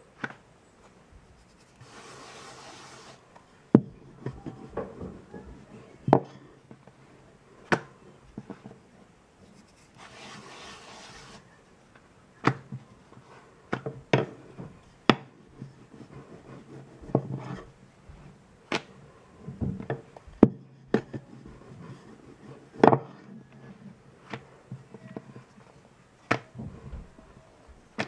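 Wooden rolling pin rolling wheat paratha dough on a granite countertop: soft rubbing strokes broken by sharp, irregular knocks as the pin taps the stone, every second or two. There are two short stretches of soft hiss, about two seconds in and again about ten seconds in.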